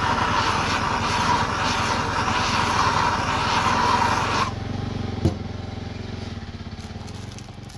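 Handheld gas torch burning steadily while heating the aluminium wheel hub's bearing bore so the bearings can go in. The flame shuts off suddenly about halfway through, and a single sharp click follows a moment later.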